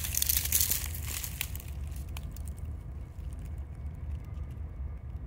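Crackling and rustling close to the microphone for about the first two seconds, then fading, over a steady low rumble.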